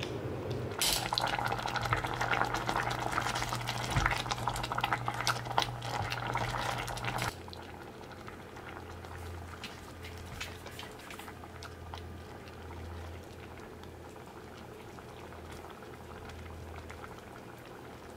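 Food bubbling and crackling in a cooking pot, dense with small pops, for about seven seconds. It then gives way abruptly to a quieter, steady low hum with faint scattered clicks.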